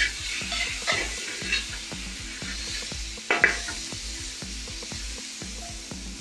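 A flat metal spatula scrapes and stirs a beef masala with chopped tomato in a wide metal uruli over a steady frying sizzle. Several scraping strokes come through, the loudest about three and a half seconds in.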